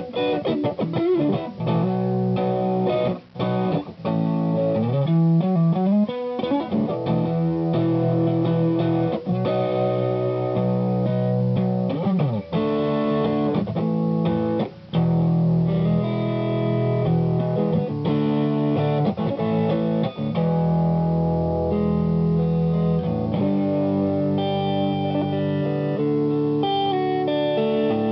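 Electric guitar, a Fender Custom Shop Stratocaster, played through an Ibanez TS808HW handwired Tube Screamer overdrive pedal into a Matchless tube amp: chords and single-note lines, with string bends in the first few seconds.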